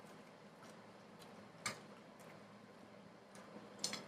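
Quiet eating sounds: a few scattered light clicks and taps, the sharpest about one and a half seconds in, with a small cluster near the end.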